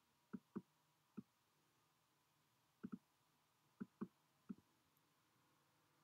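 Computer pointer clicks, about eight short clicks, several in quick pairs like double-clicks selecting words.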